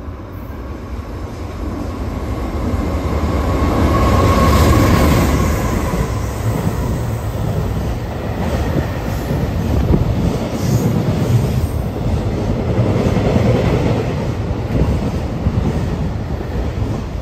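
EH500 electric locomotive passing at speed while hauling a container freight train: the rumble builds to its loudest about four to five seconds in as the locomotive goes by, with a steady high tone, then the container wagons follow with a continuing low rumble and the clickety-clack of wheels over rail joints.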